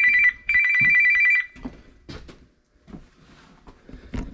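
Telephone ringing with a trilling, old-style bell ring, in short bursts that stop about a second and a half in. After that come a few faint knocks.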